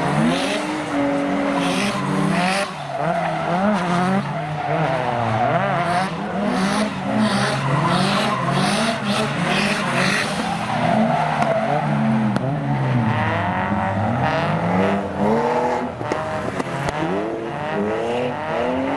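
Nissan S14's turbocharged SR20DET with an external wastegate, revving up and down again and again as the car drifts, with the tyres squealing.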